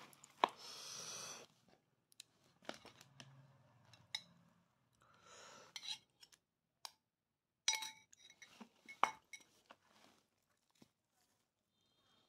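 Scattered clinks and taps of a metal spoon against a ceramic bowl, a few ringing briefly, mixed with a short rustle about a second in and the soft handling and tearing of roast duck by hand.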